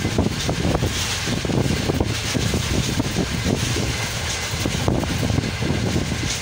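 Railway carriage running at speed, heard at an open window: a steady low rumble with continuous irregular rattling from the wheels and carriage, and wind gusting on the microphone.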